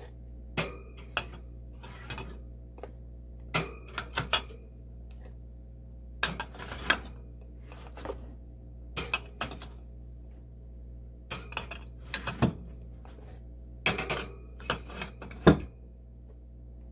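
A spoon clinking and scraping against a jar of yogurt in irregular taps, some with a short ring after them, over a steady low hum.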